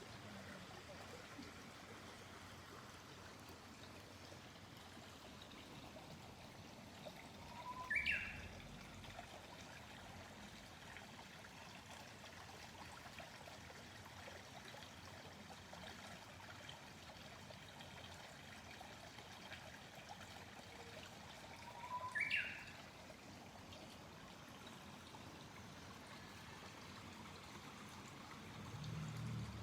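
A small stream trickling steadily while a lesser cuckoo (hototogisu) calls twice, about eight seconds in and again about fourteen seconds later. Each call is a short phrase, a low opening note followed by a quick run of higher notes. A low rumble rises near the end.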